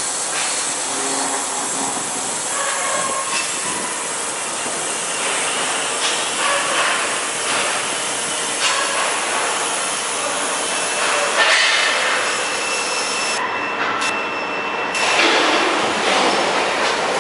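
ECMT-112c CNC foam contour cutting machine running: a steady mechanical noise with faint thin high tones over it. Near the end, the upper hiss drops out for about a second and a half.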